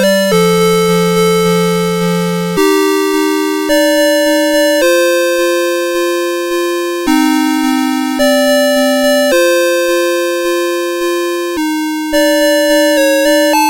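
Electronic alarm-clock melody from a CITIZEN Melody Box 30 series clock: a simple two-voice tune of pure beeping tones, the notes changing about once a second and each pulsing about three times a second.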